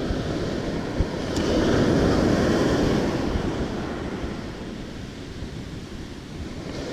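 Ocean surf washing up the beach, with wind buffeting the microphone; the wash swells loudest about two seconds in, then eases off. A single short knock sounds about a second in.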